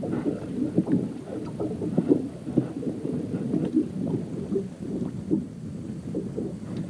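Small waves lapping and slapping irregularly against the hull of a bass boat.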